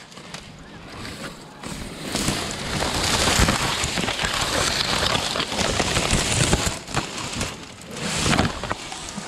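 Dry reed stems crackling and rustling as a person pushes through a dense reed bed, the stems brushing right against the microphone. It is quieter for the first couple of seconds, then becomes a thick, steady crackle.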